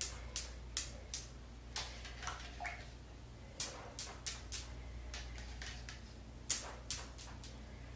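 Faint, irregular clicks and taps, about fifteen of them, from fingers dipping into a plastic cup and dabbing bleach onto denim, over a low steady hum.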